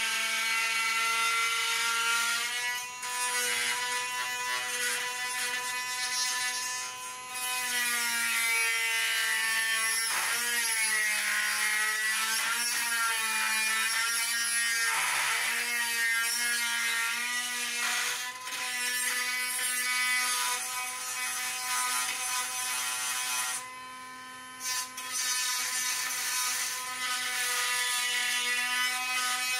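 Cordless rotary tool running at high speed with a steady whine, grinding into the steel of the front frame to notch it out. Its pitch sags and wavers as the bit bites under load, and it stops briefly about three-quarters of the way through.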